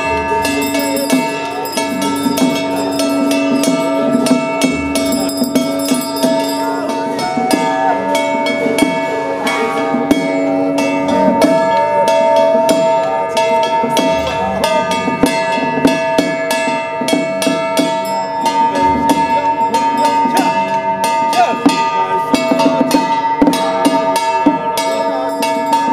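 Taiwanese Taoist ritual music: drums and cymbals struck in quick, dense strokes under held, steady tones.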